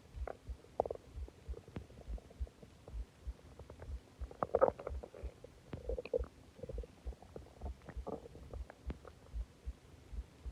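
Human stomach gurgling and rumbling as it digests a large meal and a soda: a steady run of small pops and low thuds with gurgles, the loudest about four and a half seconds in.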